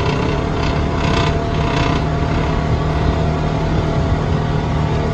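Jeep Wrangler driving along a dirt track: steady engine drone and tyre noise heard from inside the cab, with a brief rougher patch about a second in.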